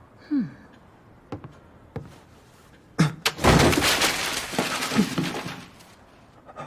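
A sharp knock, then a loud crashing, breaking noise that lasts about two and a half seconds before dying away.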